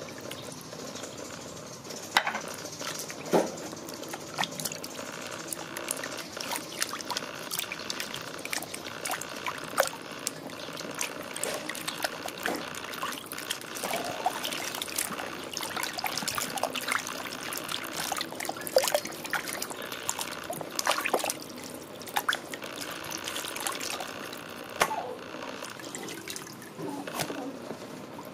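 Water sloshing and splashing in a plastic basin as hands rub and turn raw chicken drumsticks, with many irregular small splashes and knocks.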